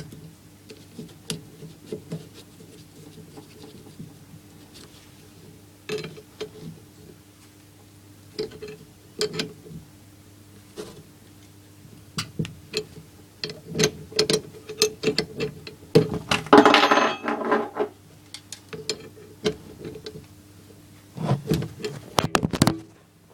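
Irregular metallic clicks and taps of a spanner and a brass compression nut and olive on copper pipe being worked on by hand. A longer scraping rustle comes about 17 seconds in and a cluster of knocks near the end, over a steady low hum.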